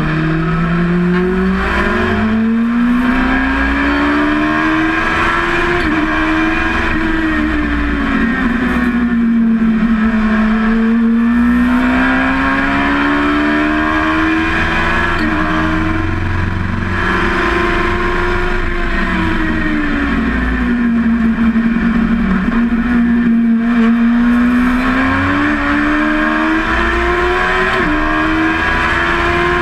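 Dwarf race car engine heard from inside the cockpit, revs climbing through upshifts. The revs fall away twice as the car slows for corners, then climb again.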